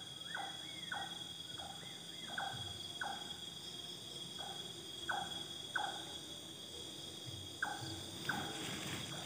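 Night insects such as crickets trilling steadily in a high, even whine, with short falling chirps repeating irregularly, about one or two a second, from a calling animal in the undergrowth.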